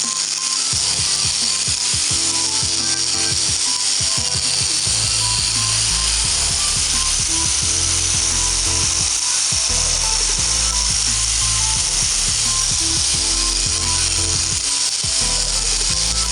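Power tool running steadily on metal, a continuous grinding hiss, with background music playing under it.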